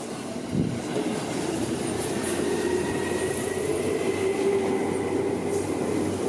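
Seibu Shinjuku Line electric train passing at close range: a thump about half a second in, then steady running noise with a steady whine.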